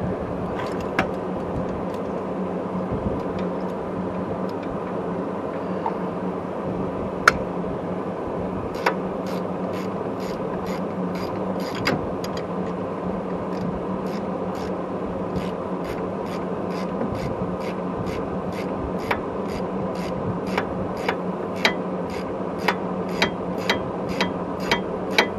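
A ratcheting gear wrench clicking in short swings, about two clicks a second, as a 16 mm sway bar link nut is tightened. A steady hum runs underneath.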